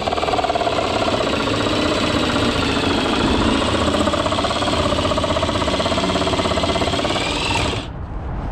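Power saw cutting into a car's plastic bumper: a steady, loud motor run whose pitch wavers slightly as it works, stopping abruptly about eight seconds in.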